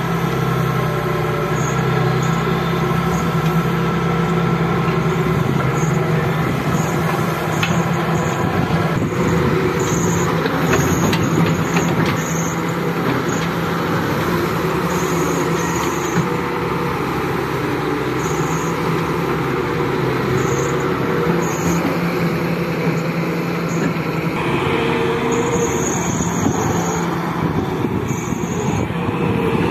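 Diesel engine of a Daewoo wheeled excavator running steadily under load as it works its hydraulic boom and bucket, digging and dumping soil. The engine note changes about nine seconds in, and short high-pitched chirps come and go over it.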